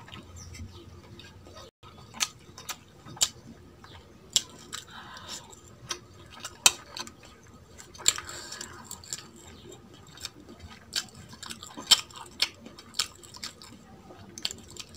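Close-miked eating by hand: chewing a mouthful of rice and mutton, with irregular sharp wet clicks about once or twice a second, and fingers mixing rice on a steel plate.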